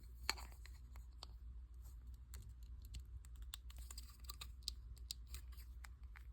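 Faint, irregular light clicks and taps of a small plastic figure and its packaging being handled, with one louder click about a third of a second in.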